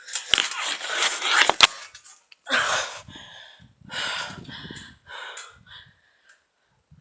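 Heavy breathing close to the microphone from a boy out of breath after trampoline jumping. A noisy rush with a few sharp knocks comes first, then three loud breaths about a second and a half apart.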